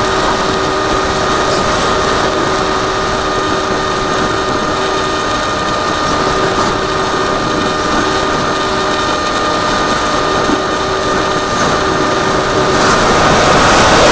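Electric motor and propeller of an AXN Floater Jet foam RC plane whining at a steady pitch in flight, heard from a camera on the nose with wind rushing over the microphone. The wind rush grows louder near the end as the plane noses steeply down.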